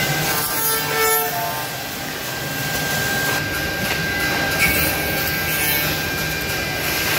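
Milling spindles of a SEMAC two-head CNC tenoning machine cutting tenons in wood. A steady high tone and low hum run over a rasping noise, with the pitch wavering briefly about a second in.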